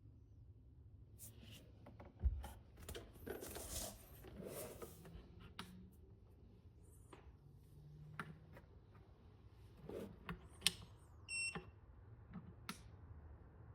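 Scattered clicks and knocks of plugs and buttons being handled on a portable fridge and power station, then a single short electronic beep a little after eleven seconds, the kind an appliance gives when it powers on or takes a button press.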